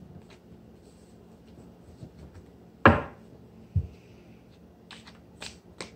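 Tarot cards and deck handled on a table: one sharp knock about halfway through, a duller thump just after it, and a few light card clicks near the end.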